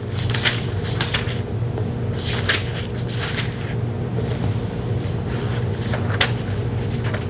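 Bible pages being turned and leafed through, heard as irregular short rustles and soft scrapes close to the microphone. A steady low hum runs underneath.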